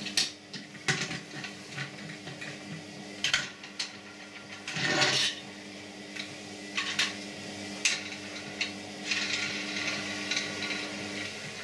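Handling noise from a plastic Paw Patrol Skye toy helicopter being picked up and waved about: scattered small clicks, knocks and rubbing of plastic. About five seconds in there is a louder rustle.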